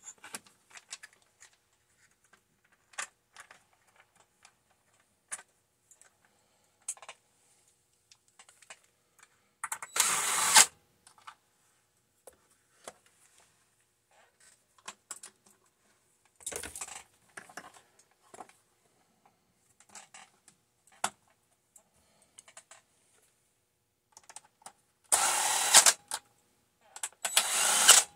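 Cordless drill-driver running screws into a chainsaw's plastic housing in four short runs of about a second each, among light clicks and clatter of parts being handled.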